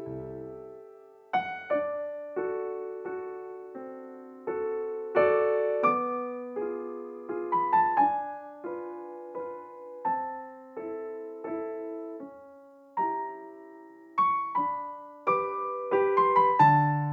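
Background piano music: a gentle, slow melody of single struck notes and soft chords, each note dying away.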